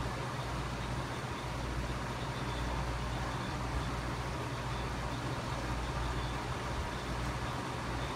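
Steady low hum of aquarium filtration running, with an even hiss over it and no changes.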